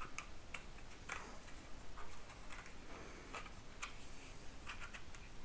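Irregular small clicks and taps of hard plastic being handled: a Boya MM1 microphone being fitted onto a 3D-printed cold shoe mount on a small tripod.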